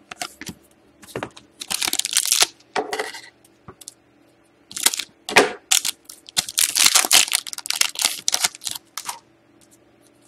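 Foil trading-card pack wrapper crinkling and tearing open in the hands, in several bursts with the longest near the middle, along with cards sliding against one another.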